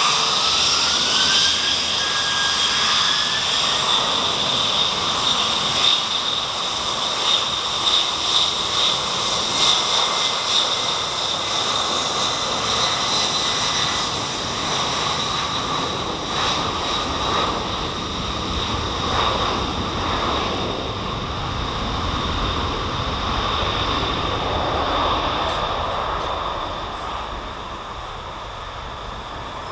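Jet engines of a three-engine FedEx wide-body freighter at high thrust on its takeoff roll: a whine rises in pitch over the first few seconds as the engines spool up, then a loud steady jet roar that fades near the end as the aircraft draws away down the runway.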